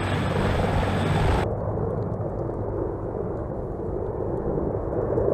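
CH-53K King Stallion heavy-lift helicopter's rotors and engines, a steady low rumble of the helicopter hovering under a sling load. About a second and a half in, the sound cuts to a duller, more muffled rumble as it flies with the load.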